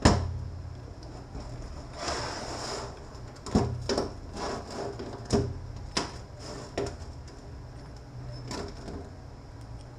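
Metal parts of a BorgWarner 1356 transfer case knocking and scraping as the slack drive chain and sprocket are worked off their shafts by hand. There is a loud knock at the start, a scrape about two seconds in, and a series of separate knocks after that.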